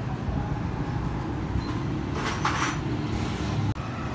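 Steady low rumble of workshop background noise, with a short burst of hiss about two seconds in and an instant where the sound drops out near the end.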